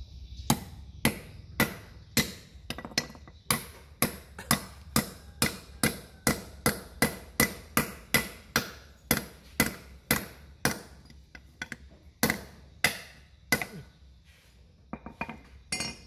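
Hammer striking metal in a steady rhythm of about two blows a second, each blow ringing briefly; after a pause of about a second and a half come three more blows, then a few light clicks.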